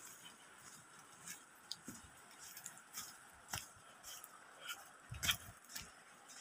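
Footsteps squelching and splashing through wet sand and shallow muddy water: a string of irregular soft wet steps, with one louder thud about five seconds in, over a faint steady hiss.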